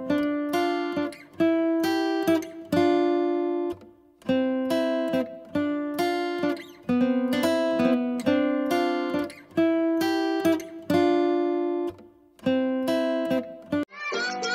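Background music: an acoustic guitar plays plucked chords in a steady repeating pattern, each chord ringing and fading before the next. Near the end it cuts to a different music track.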